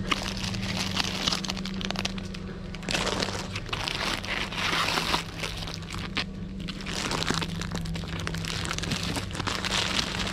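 Packaging crinkling and crackling as it is handled, many small irregular crackles, over a steady low hum.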